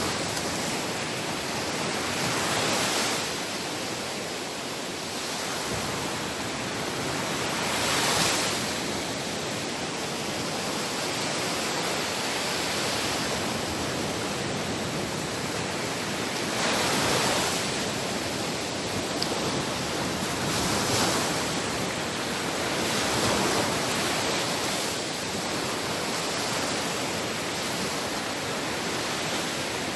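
Sea waves washing onto a shore: a steady hiss of surf that swells every few seconds as waves break.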